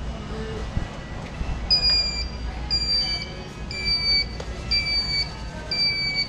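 A high electronic beep repeating about once a second, each beep about half a second long and dipping slightly in pitch, starting a little under two seconds in, over a steady low hum.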